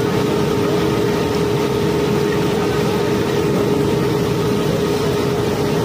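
Conveyor carrying river cobblestones in a steady stream, the rocks grinding and rattling together over the constant hum of the unloading machinery.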